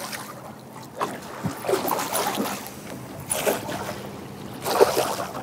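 Hooked pike thrashing and splashing at the water's surface beside the boat hull, in several bursts, the loudest shortly before the end.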